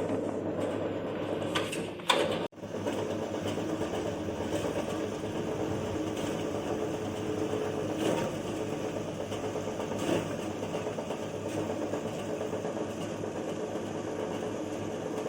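Electric chicken meat shredder machine running steadily, a motor hum with a constant tone, broken off briefly about two and a half seconds in.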